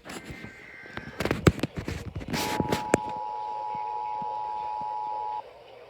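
Crackle and clicks of radio static, then the Emergency Alert System two-tone attention signal: two steady tones, near 853 and 960 Hz, sounding together for about three seconds before they cut off sharply.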